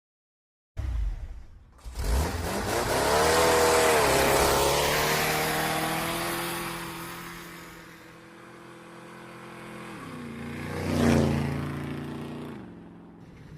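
Motorcycle engine starting suddenly, then revving up with a rising pitch and settling into a steady run that fades away. It grows louder again to a peak near the end, then fades.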